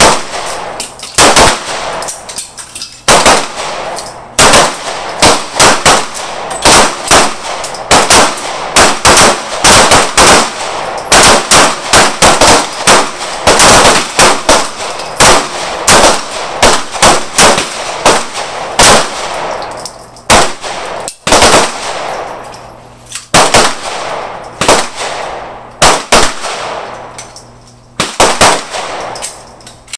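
Pistol gunfire from a line of shooters firing at once: many sharp shots in quick, irregular succession, often overlapping, each trailed by a short echo. The shooting thins to scattered shots over the last several seconds.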